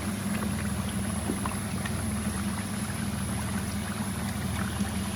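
Lamb shoulder pieces deep-frying in a karai of very hot vegetable oil: steady sizzling with many small scattered pops and crackles, over a steady low hum.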